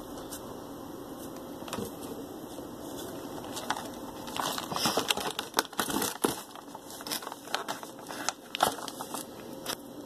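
Clear plastic snack-kit packs crinkling and clicking as they are handled and lifted from a cardboard box. Scattered crackles, busiest from about four seconds in.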